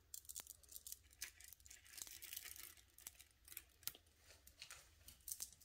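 Faint, scattered clicks and rustles of bead necklaces being handled.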